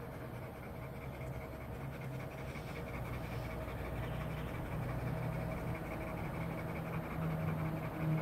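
Dog panting rapidly and steadily, growing a little louder over the stretch, with a low drone building in the second half.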